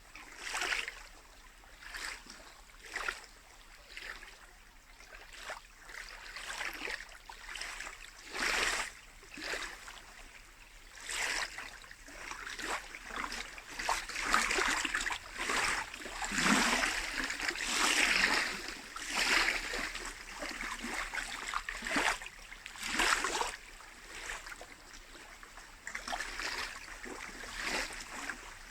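Small lake waves lapping and splashing against the shore in repeated washes, one every second or two, busier and louder through the middle.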